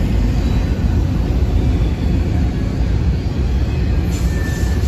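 Freight train of enclosed autorack cars rolling past, with a steady low rumble of steel wheels on rail. A thin, high wheel squeal comes in near the end.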